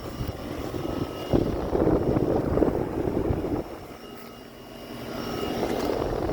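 Outdoor air-conditioner condensing unit running: a steady fan whoosh with a faint hum. The whoosh swells about a second in, drops back midway, and rises again near the end.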